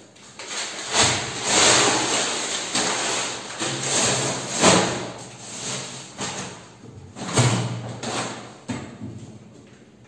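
Plastic food packets and bags rustling and knocking as they are packed into an open chest deep freezer, with a few louder knocks among the rustle.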